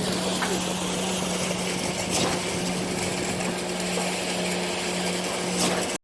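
Truck-mounted concrete boom pump running steadily, with a constant engine and hydraulic hum and a few sharp knocks.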